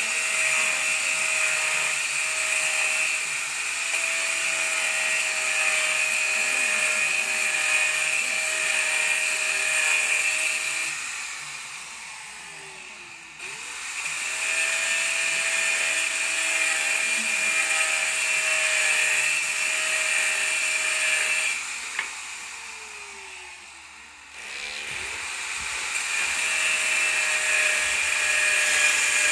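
Handheld electric power tool running with a steady motor whine. Twice it is released and winds down, the pitch falling as it slows, and each time it is started again.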